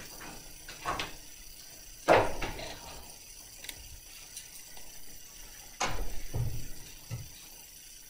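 Two sudden knocks, each followed by a short stretch of rustling handling noise, about two seconds in and again near six seconds, with a few faint clicks between them.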